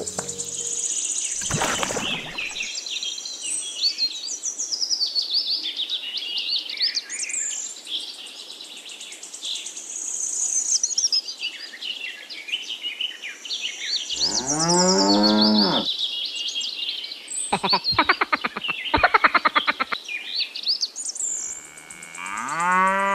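Cow mooing, once about two-thirds of the way through and again starting near the end, over constant chirping of small birds, with a short pulsing call in between.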